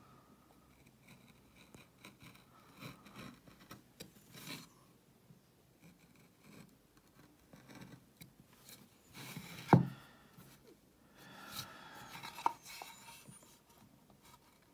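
Hand carving V-tool pushed through linden wood, cutting short relief grooves in faint scraping strokes. There is one sharp knock about ten seconds in.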